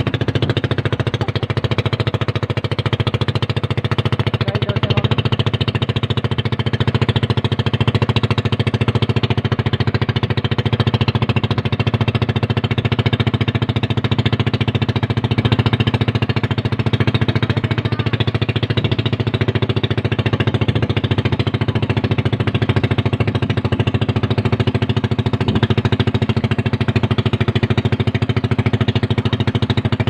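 Small motorboat engine running steadily at speed, one constant pitch with no change in engine speed.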